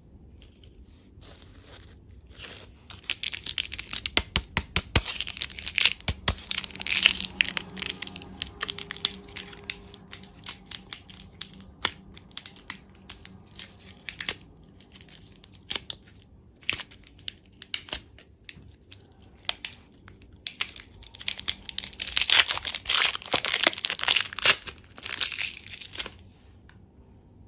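Crinkling, crackling and tearing of candy packaging being handled and opened, with scattered sharp clicks. It comes in two busy stretches, one starting about three seconds in and another about twenty-one seconds in.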